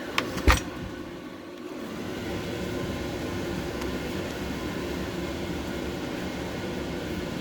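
Steady background hum of machine noise, with two sharp clicks in the first half second.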